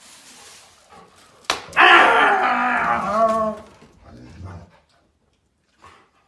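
A dog vocalising once, loud and drawn out for under two seconds, its pitch dropping toward the end. A sharp knock comes just before it.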